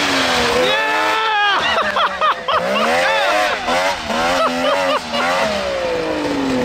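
Two-stroke engine of a converted Can-Am Maverick X3 side-by-side revving hard, its pitch rising and falling again and again as the throttle is worked, then winding down in one long falling note near the end.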